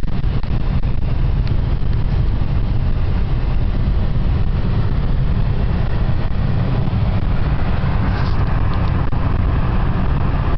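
Steady road noise inside a moving car's cabin at motorway speed: a constant low rumble of tyres and engine with wind noise over it.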